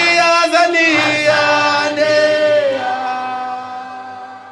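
Voices singing a South African political struggle song, ending on a long held note that fades out.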